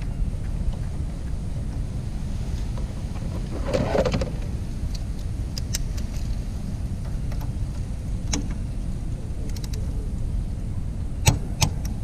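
Low wind rumble on the microphone, with scattered short metallic clicks and taps from a ratchet and hex socket working the pad pins of a motorcycle's front brake caliper. The two loudest clicks come close together near the end.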